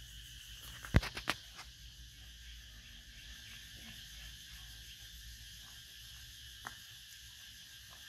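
Steady background chirring of insects, with two sharp clicks about a second in and a fainter click near the end.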